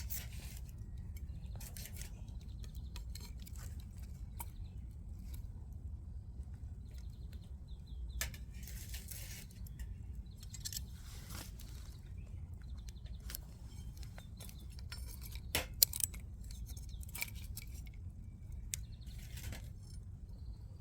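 Scattered small clinks, taps and clicks of objects being handled, over a low steady rumble, with a pair of sharper clicks about two-thirds of the way through.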